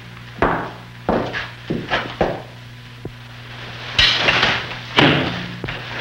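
Four sharp knocks, irregularly spaced about half a second apart, then two louder hissing bursts about a second apart, over a steady low hum.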